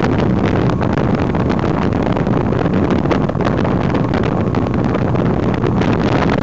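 Motorboat running at speed, its engine and hull noise mixed with heavy wind buffeting on the microphone.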